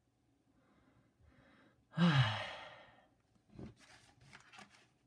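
A man's heavy sigh: a faint breath in, then a long exhale about two seconds in, voiced and falling in pitch as it fades. A few light clicks follow near the end.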